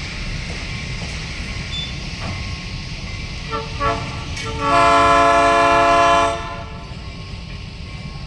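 Diesel locomotive air horn giving two short toots, then one long blast of about a second and a half, over a steady low rumble of the train.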